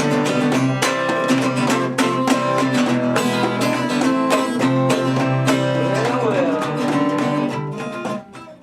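Background music led by a plucked guitar, with a steady beat, fading away near the end.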